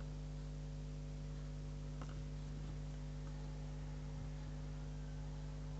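Steady low electrical hum with a faint short tap about two seconds in.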